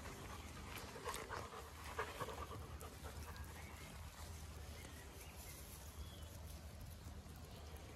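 A dog panting, with rustling in long grass; short louder rustles about one and two seconds in.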